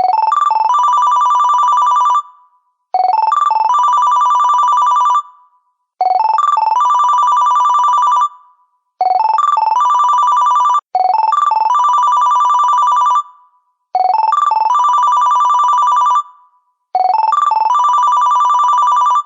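Huawei stock phone ringtone: a quick run of short notes leading into a held, warbling ring about two seconds long, repeated seven times with short gaps between rings.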